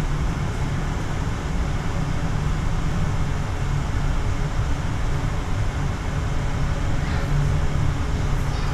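Steady low rumble inside a car of the Cabletren Bolivariano, a cable-hauled Doppelmayr people mover, as it runs along its elevated guideway.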